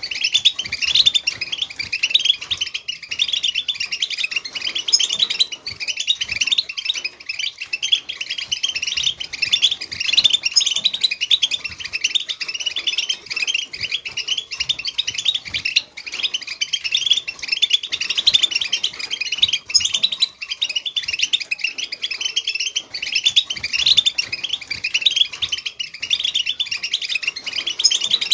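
A group of European goldfinches twittering and singing together: a dense, unbroken stream of quick, overlapping high chirps.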